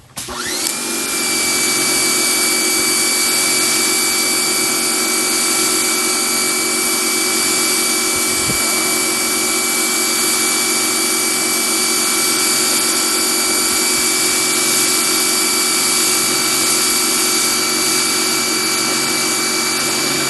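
Powerhouse electric pressure washer starting up, its motor and pump whine rising and settling within the first second, then running steadily with the hiss of water spraying from the 40-degree nozzle.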